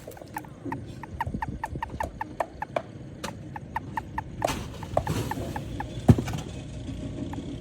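A toad calling: a fast, even series of short pulsed notes, about five a second. A few sharp knocks sound over it, the loudest about six seconds in.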